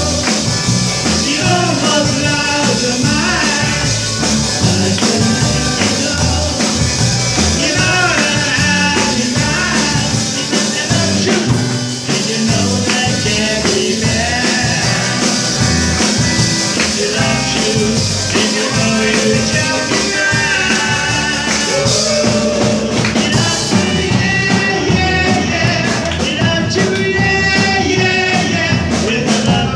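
Live rock band playing: drum kit, electric guitars and keyboard behind a sung lead vocal.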